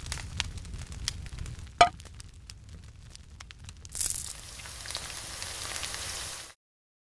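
Sound effects of a campfire crackling over a low rumble, with scattered pops, one loud pop a little under two seconds in. About four seconds in, a steady sizzle of oil hitting a hot frying pan takes over and stops suddenly near the end.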